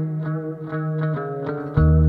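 Background music: plucked guitar notes with effects over held chords. Near the end a deep bass comes in suddenly and the music gets louder.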